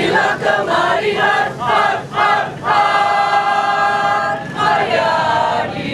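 Choir of mixed men's and women's voices singing together: a run of short sung syllables, then one long held note about halfway through, then another short phrase.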